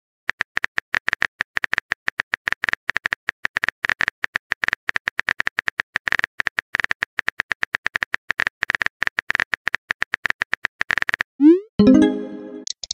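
Simulated phone-keyboard typing clicks from a texting-story app, a fast steady patter that stops about eleven seconds in. A short rising whoosh and a brief chime follow as the message is sent.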